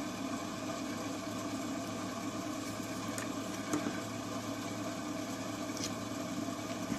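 A steady low electrical hum, with a few faint small clicks.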